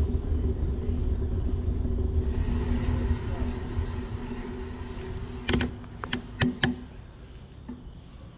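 A motor running with a low rumble and a steady hum that fades away about seven seconds in, with four sharp clicks about five and a half to six and a half seconds in.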